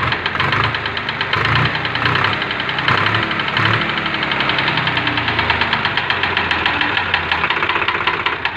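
Swaraj 735 tractor's three-cylinder diesel engine running with a rapid, heavy knock, louder in the first few seconds. The mechanic takes the knock for a seized number 2 piston, after the engine overheated from losing its coolant.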